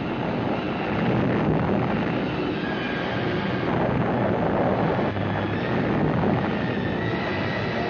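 Sustained roar of a nuclear test blast's sound wave, steady and loud with no separate bangs.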